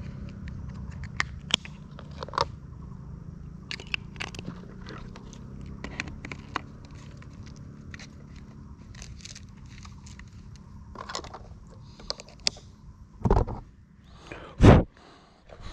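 Scattered small clicks and ticks over a low hum, then two loud bumps near the end as the FPV drone is picked up and handled by hand.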